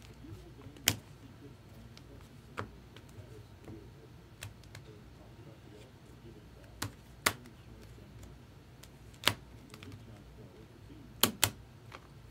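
Sparse, sharp clicks of computer keys being pressed, a second or two apart, with two quick pairs of clicks near the middle and near the end.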